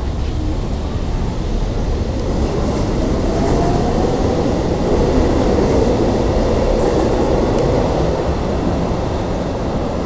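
Amsterdam metro train pulling out of the station and accelerating away, with a steady rumble of wheels on rail. A motor whine rises in pitch over the first few seconds, and a few brief high squeals come from the wheels.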